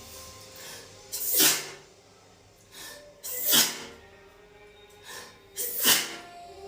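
A woman sneezing in a fit, three sneezes about two seconds apart. Each is a short voiced catch falling in pitch, followed by a sharp burst of breath.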